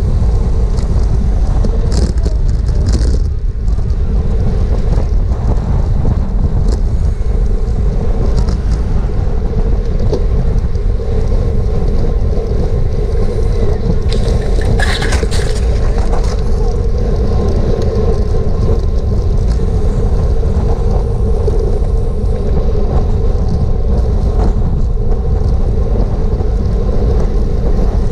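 Heavy wind buffeting on a GoPro's microphone as a road bike rides at race speed in a pack, with a steady road and tyre hum underneath. A short, sharper burst of noise cuts through about halfway through.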